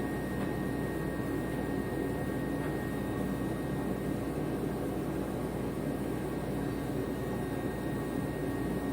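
A machine running steadily: an even rumbling noise with a faint, thin high whine held at one pitch throughout.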